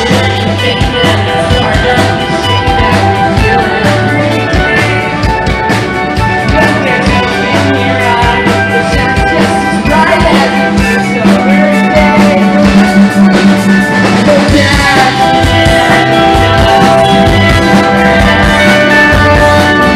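Live rock band playing loud: electric guitar, electric bass and drum kit.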